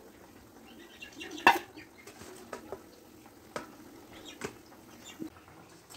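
Wet mustard and green chilli paste being pressed by hand through a plastic strainer: quiet handling sounds with a few scattered taps and knocks of plastic, the loudest about one and a half seconds in.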